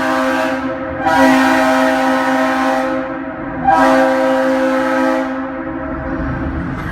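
Leslie S3L three-chime air horn sounding its chord in repeated blasts. One blast fades just after the start, and fresh blasts come about a second in and near four seconds in. The chord lingers in the tunnel's echo between and after them.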